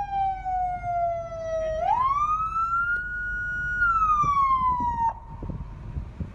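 Police car siren wailing in one slow sweep, falling, rising and falling again, then switched off abruptly about five seconds in, leaving faint street noise.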